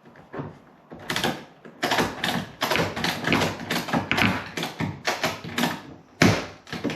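Ratchet strap being cranked tight in a quick run of clicks, about four or five a second, hoisting a fuel tank up under the Jeep.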